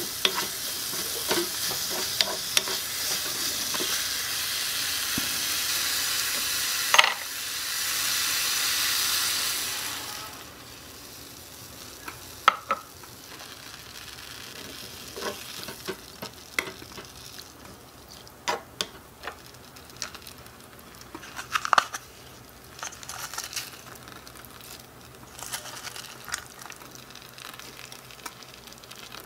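Vegetables sizzling in a miniature metal wok over a small gas flame, stirred with a little wooden spoon that clicks and scrapes against the pan. The sizzle is loud for about the first ten seconds, then dies down, leaving soft, scattered stirring taps.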